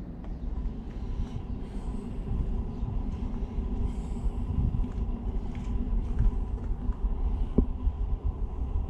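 Wind buffeting the microphone: a low, uneven rumble that grows slightly louder, with a few faint ticks, one sharper near the end.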